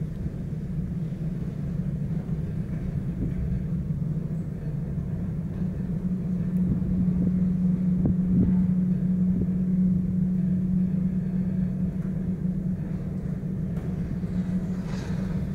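Steady low hum and rumble of a cable-car cabin running along its ropes, heard from inside the cabin. It swells a little in the middle.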